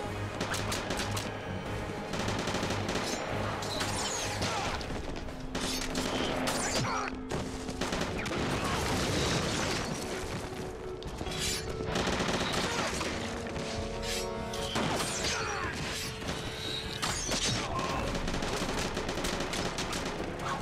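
Repeated rifle gunfire and blasts, a dense run of shots and impacts, mixed with background music.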